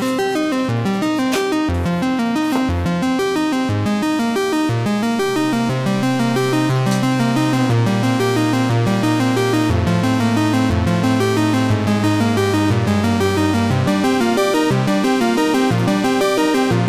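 Background music in an upbeat electronic, video-game style, with quick repeating notes over a bass line that holds long notes for a stretch in the middle.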